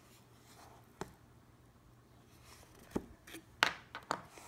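Four short knocks and taps of a cardboard mailer box being handled on a table, the loudest about three and a half seconds in.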